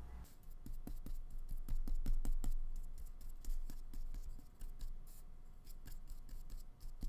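Paintbrush dabbing and scrubbing acrylic paint on a paper palette while mixing a lighter colour. It makes irregular soft taps and scratches, with light knocks against the table.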